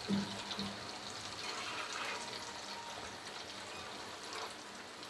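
Chicken samosas deep-frying in hot oil: a steady bubbling sizzle with fine crackling.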